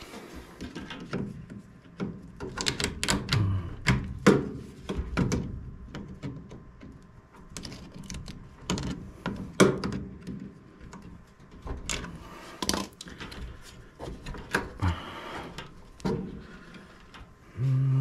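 Pliers and hands working the hose clamps and plastic drain hoses off a gas furnace's condensate trap: irregular clicks, knocks and plastic rattles, the sharpest knocks about four and ten seconds in.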